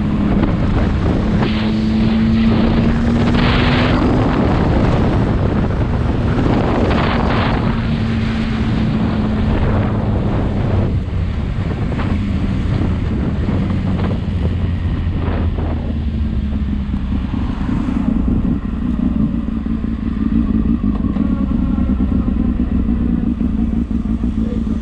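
Motorcycle engine running at road speed, its pitch rising a little in the first few seconds and then settling lower. Gusts of wind noise hit the microphone, mostly in the first half.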